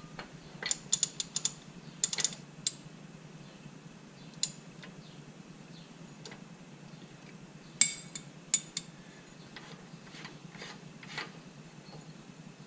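Metal clicks and clinks of a ratchet and spindle-nut socket working the spindle nut loose on a truck's front wheel hub. The clicks come in short clusters, with the loudest clank about eight seconds in.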